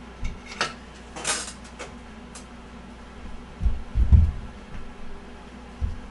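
Hand tools and metal parts clinking a few times as a foot peg is bolted onto an electric bike, followed by a couple of dull low knocks.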